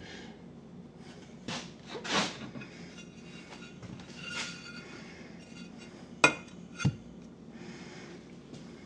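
Tiles being shuffled and set down: tile scraping and clinking against tile, with two sharp clacks about two-thirds of the way through, the loudest sounds.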